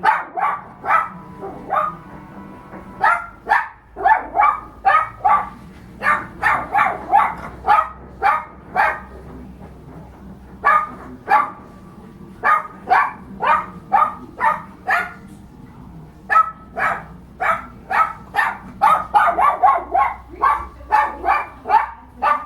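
Toy poodle barking rapidly and repeatedly, short sharp barks about two or three a second, in runs broken by a couple of brief pauses.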